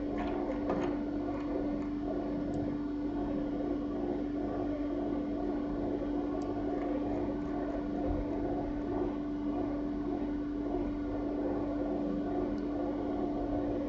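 Computer cooling fan whirring steadily with a constant hum while the machine renders, with a few faint mouse clicks.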